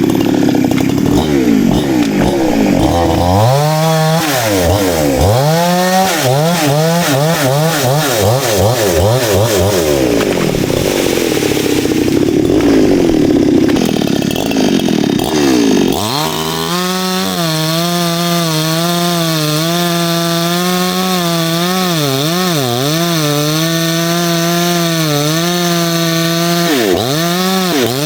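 Two-stroke chainsaw cutting wood. In the first half its engine speed sags and recovers again and again under load. From a little past halfway it runs at a steady high pitch, with brief dips about two thirds through and near the end.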